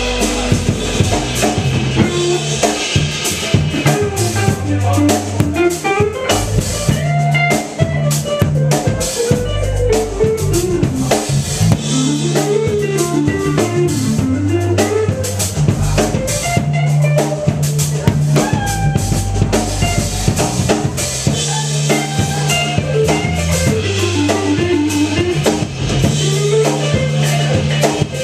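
Funk trio playing live: drum kit with rimshots and bass drum under a steady bass line, and a guitar playing a melodic line of single notes over it.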